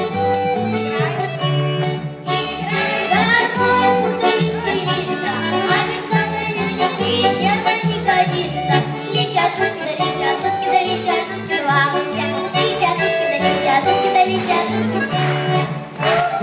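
Two young girls singing a Russian folk song into microphones over a backing track with a steady beat, a bass line and tambourine-like jingles.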